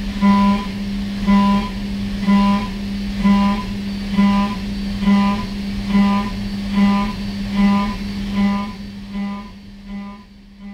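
End mill on a DN Solutions DVF 5000 five-axis CNC mill cutting a steel part. It gives a steady pitched cutting tone that swells about once a second and fades near the end.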